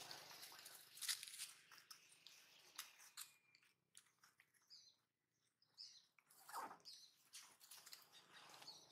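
Faint crunching and clicking of a long-tailed macaque biting and chewing a lotus seed pod, mostly in the first three seconds. Then quieter stretches with a few faint high chirps.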